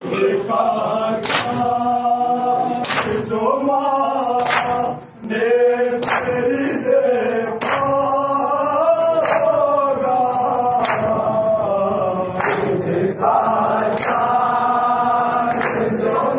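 Men chanting a nauha, a Shia lament for Muharram, together in one melody, with a sharp slap of matam (chest-beating in unison) about every one and a half seconds. The singing breaks off briefly about five seconds in.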